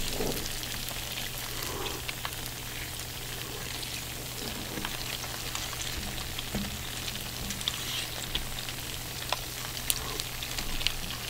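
Melted cheese sizzling steadily on a hot stone serving plate, a fine continuous crackle with a few small clicks as fried chicken drumsticks are pulled and forked out of it.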